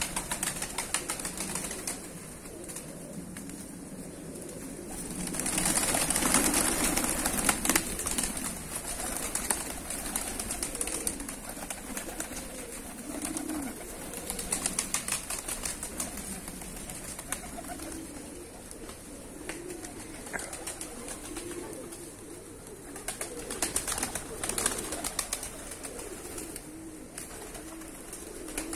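A large flock of domestic fighting pigeons cooing steadily, with flurries of wing-flapping as birds take off and land; the loudest burst of wingbeats comes about six seconds in.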